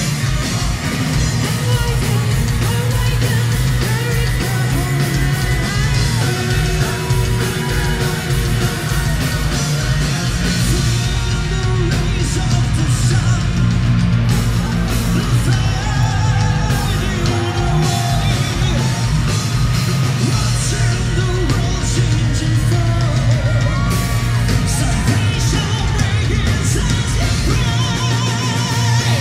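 Symphonic metal band playing live at full volume: distorted guitars and drums with a rapid kick drum under sung vocals.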